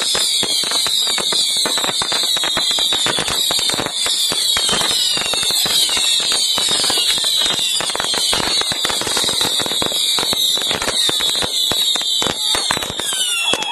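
Hundreds of bottle rockets going off at once: a dense mass of overlapping falling whistles over rapid, unbroken crackling pops.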